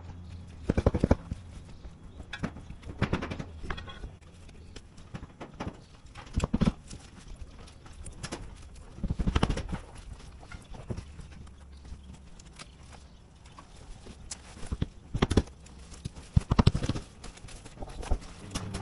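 Clusters of quick knocks and scuffs, half a dozen times, from a roofer handling and pressing down a roll of SBS roofing membrane on the roof deck.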